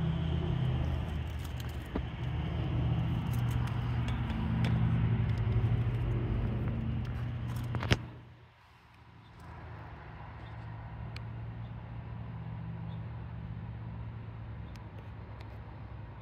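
A motor vehicle engine running steadily, a low hum. About halfway through there is a sharp click, and the sound drops to a quieter, steady hum.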